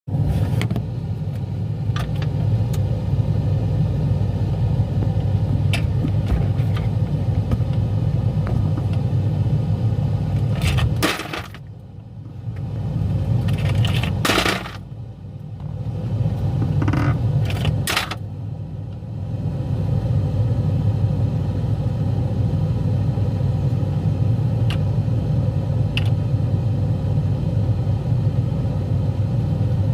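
Whirlpool refrigerator ice maker dropping a batch of ice cubes into the bin: a few scattered clicks, then a burst of louder clatter and knocks about halfway through, over a steady low hum.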